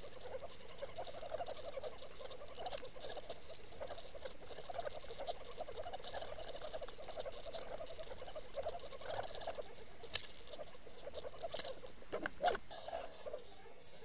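Underwater noise picked up by a camera towed behind a trolling boat: a steady, rapid fluttering, with a few sharp clicks in the last few seconds, the loudest about two seconds before the end.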